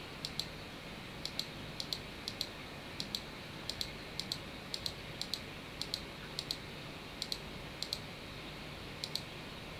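Computer clicks, each a quick double tick, repeated about every half second while images are paged through on screen. Underneath is a faint steady hum.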